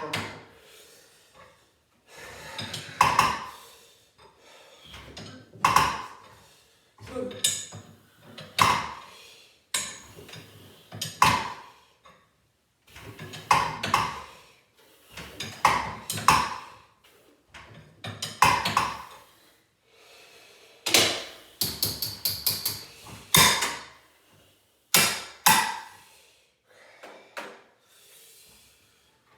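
Sharp metallic knocks and clanks at irregular intervals as garage door hardware is worked on, each with a brief ring, including a quick run of several strikes about two thirds of the way through.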